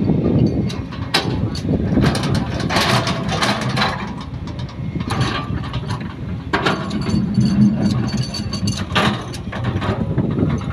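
Sumitomo hydraulic excavator's diesel engine running steadily under load, with repeated bursts of metallic clanking and rattling as the machine works.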